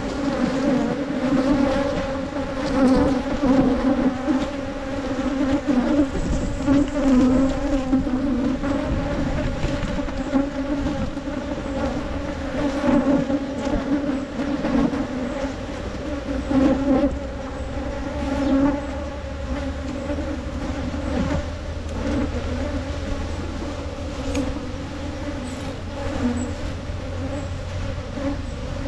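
Many wild honey bees buzzing loudly around their nest in a hole in the ground, stirred up by smoke from a bee smoker. A dense, steady hum that swells and dips.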